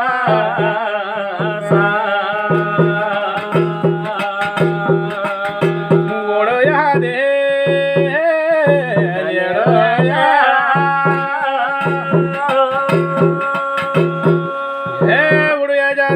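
Garhwali jagar music: a drum keeps a steady beat of about two strokes a second under held melodic notes that bend in pitch for a few seconds near the middle.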